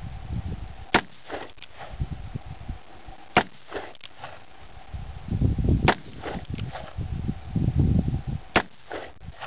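Uberti Cattleman single-action revolver, a Colt Single Action Army clone, firing .45 Colt cartridges loaded with black powder: four shots about two and a half seconds apart, each a loud boom followed by echoes.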